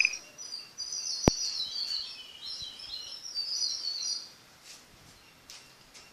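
Small birds chirping and twittering in quick, high notes for about four seconds, then fading away. A single sharp click about a second in.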